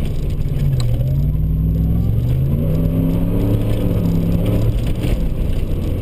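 Ford Raptor pickup's engine running under way, heard from inside the cab. Its pitch dips about a second in, then rises in steps as the truck picks up speed, over a steady low rumble.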